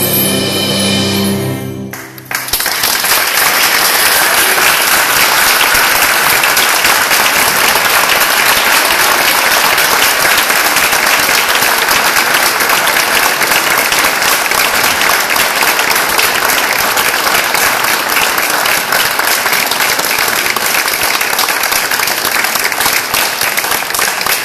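A cello orchestra's final held chord cuts off about two seconds in. The audience then applauds steadily.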